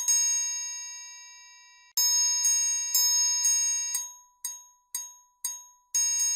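Metal triangle struck with a beater. One stroke rings out for about two seconds, then come strokes about twice a second, then single strokes damped quickly to silence, and a fast run of strokes near the end.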